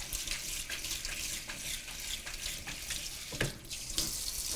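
Kitchen faucet running water over frozen lima beans being rinsed in a bowl in the sink, with small clicks of the beans and bowl and a sharper knock about three and a half seconds in.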